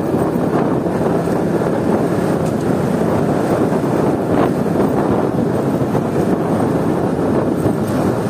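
Wind buffeting the microphone of a handlebar-mounted phone on a moving motorcycle, over the steady running of its engine and road noise.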